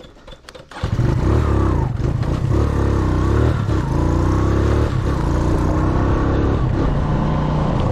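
Motorcycle engine comes on suddenly about a second in, after a few clicks, and keeps running loudly, its pitch rising and falling as it is ridden.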